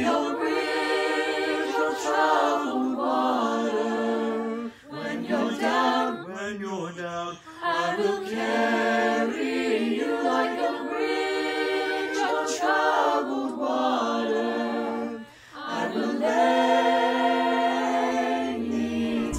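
Virtual choir of mixed student voices, mixed together from separate home recordings, singing a cappella in sustained chords. The singing breaks off briefly three times between phrases.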